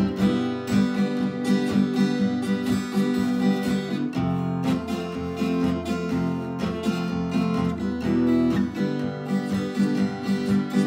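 Strummed acoustic guitar playing an instrumental passage of chords, with no singing.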